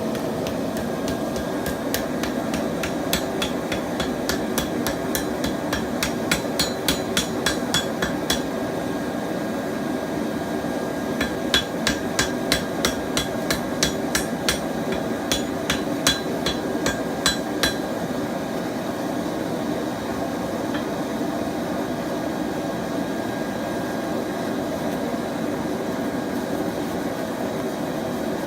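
Hammer striking a hot layered steel billet in two runs of quick blows, about three a second, setting a forge weld. Under it runs the steady noise of a propane forge burner.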